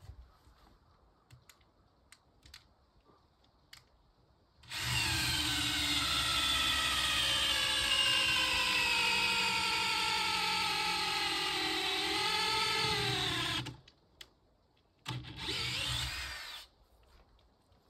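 Electric power drill boring into wood: one run of about nine seconds with its pitch slowly sinking, then a second, shorter run of about a second and a half. Small clicks and knocks come between the runs.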